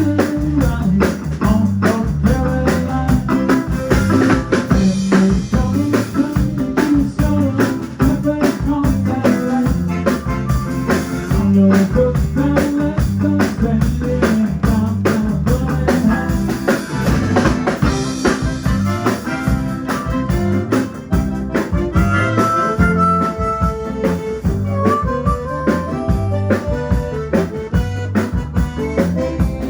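A band playing an up-tempo number with a steady drum-kit beat under it.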